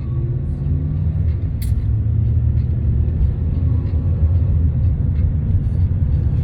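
Car driving along, with a steady low rumble of engine and road noise heard from inside the cabin.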